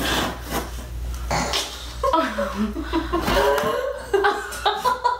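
Young women laughing and chuckling: breathy bursts at first, then voiced laughter from about two seconds in.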